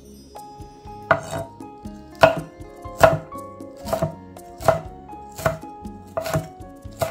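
Kitchen knife chopping food on a cutting board in slow, even strokes, about one every three-quarters of a second.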